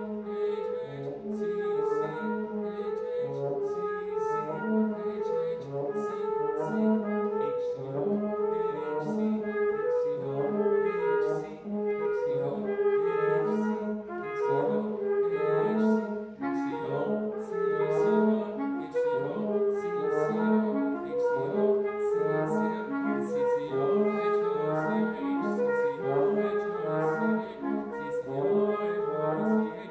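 Trumpet, bass clarinet and trombone playing chamber music together, a dense texture of short, pulsing repeated notes.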